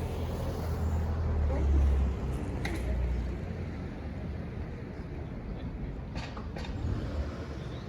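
A motor vehicle passing on a street, its low engine rumble swelling to its loudest about two seconds in and then fading. A few short sharp clicks come later.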